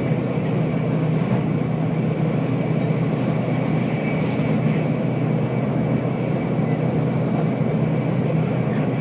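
Running noise inside a Shinkansen Nozomi bullet train at speed: a steady, unbroken rumble with a faint high steady tone above it.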